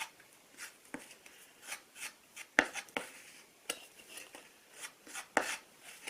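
Two-part wood filler and hardener being mixed on a small block of wood: irregular short scrapes and taps, roughly one or two a second.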